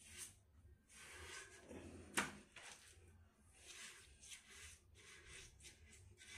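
Faint wet rubbing strokes of a hand smearing diluted white cement grout along the base of a toilet bowl, with one sharp knock about two seconds in.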